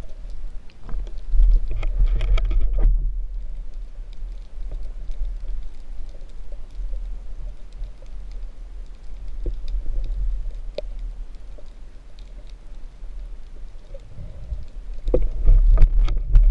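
Underwater sound recorded by a spearfisher's camera: a constant low rumble of water moving against the housing, with scattered sharp clicks. There is a short pitched buzz about two seconds in, and the rumble and clicks grow louder near the end.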